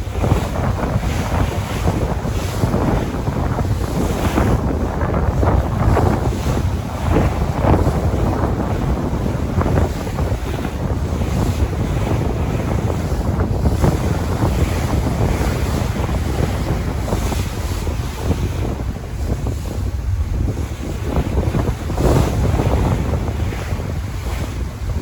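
Sea waves surging and washing onto a shore in continuous, uneven swells, with a low rumble of wind on the microphone.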